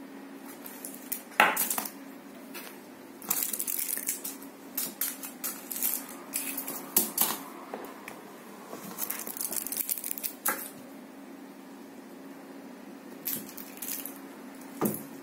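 A foil-wrapped candy being batted and skittered about by a cat: scattered clicks, taps and wrapper crinkles on a hard floor, with a louder knock about a second and a half in and again near the end, under a steady low hum.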